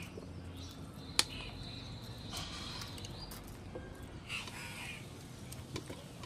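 A few short bird calls over faint background noise, with a single sharp click about a second in.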